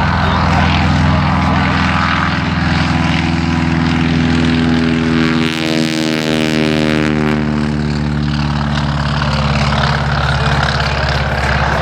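Propeller airplane's engine running steadily as the aircraft passes by, closest about six seconds in.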